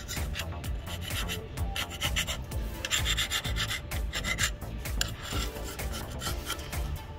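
Old gasket and sealer being scraped off a forklift drive unit's metal mounting face, in rapid, uneven rasping strokes.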